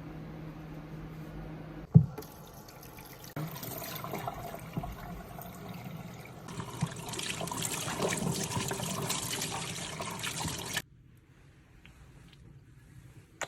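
A sharp click, then water running and splashing, as from a shower head rinsing hair at a basin during a scalp treatment; it grows louder and cuts off suddenly near the end.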